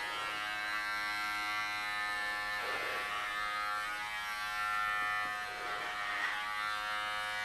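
Electric hair clippers running steadily while shaving a head, a constant buzz with brief swells as the blades pass through hair about three and six seconds in. The head is about halfway shaved.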